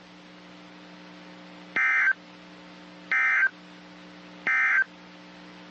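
Three short bursts of warbling digital data tones from a NOAA Weather Radio broadcast, each about a third of a second long and a little over a second apart: the SAME end-of-message code that closes an emergency alert, here a severe thunderstorm warning. A faint steady low hum runs between the bursts.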